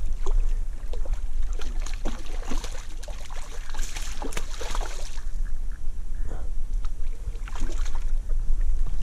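A hooked trout splashing and thrashing at the surface as it is drawn to the landing net, the biggest splashes about four to five seconds in, over a steady low wind rumble on the microphone.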